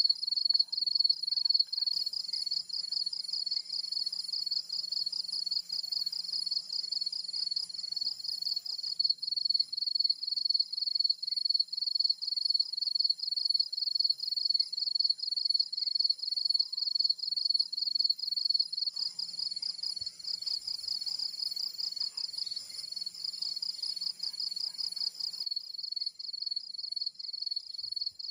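A dense insect chorus: a high, fast-pulsing trill that goes on steadily, swelling and dipping in loudness about once a second.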